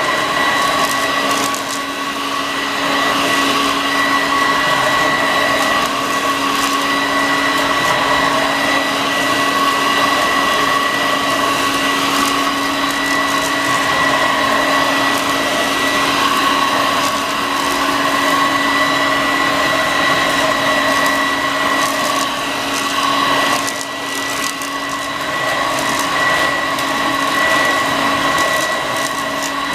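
Homemade bagless cyclonic upright vacuum cleaner running steadily, its motor giving a high whine over a rushing airflow, with a brief drop in level about three-quarters of the way through.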